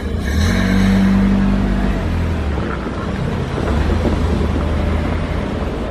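Low droning hum of a passing vehicle, strongest in the first two seconds, with a second swell about four seconds in.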